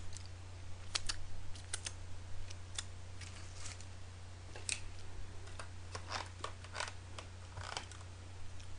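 Scattered crinkles and clicks from a foil-lined paper takeaway chicken box being handled, over a steady low hum.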